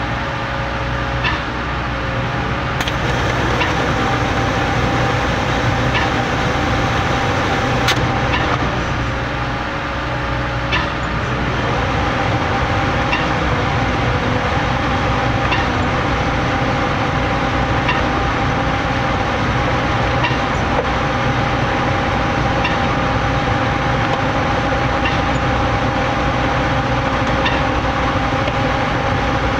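Putzmeister trailer concrete pump running steadily under load, its engine droning, with a sharp clack about every two and a half seconds as the pump strokes and shifts its valve.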